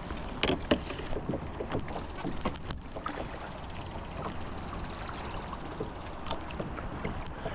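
A kayak being paddled on a river: paddle strokes in the water with scattered knocks and clicks, thickest in the first few seconds, over a steady rush of wind and moving water.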